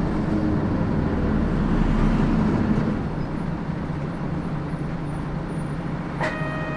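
Nishitetsu route bus driving, heard from inside: a steady engine and road noise that eases a little about three seconds in. Near the end there is a click, followed by an electronic chime tone from the bus's on-board system.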